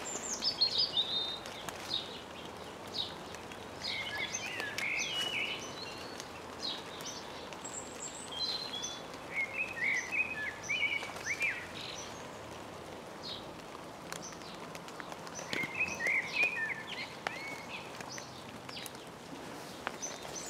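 Common blackbird singing, several warbled phrases a few seconds apart, over a steady hiss of drizzle with scattered small drip clicks.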